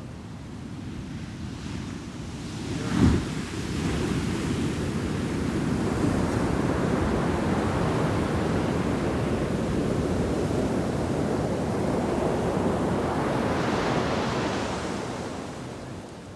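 Heavy shore-break wave slamming onto the beach with a deep thud about three seconds in, followed by a long rush of whitewater washing up the sand, which hisses and fades near the end.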